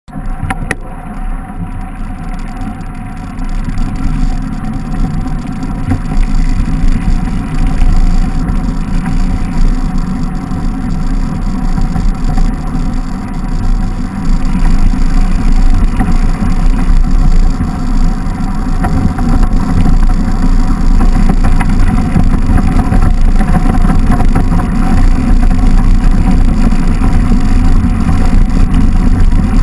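Wind buffeting the microphone of a camera on a mountain bike descending fast, mixed with the rumble of wide knobby tyres rolling over packed snow. It grows louder over the first few seconds and again about halfway through as speed builds.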